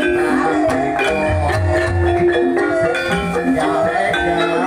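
Banyumasan calung music: bamboo xylophones playing quick runs of short notes over repeated deep bass notes.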